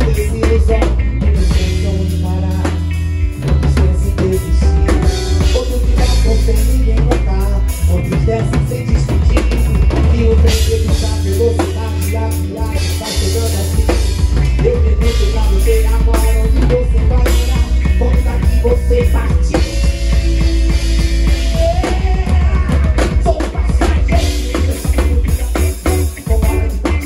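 Live band music heard as the on-stage sound: a Waldman Turbo 2.0 electric bass playing a steady groove with heavy low end over a drum kit with kick, snare and rimshots.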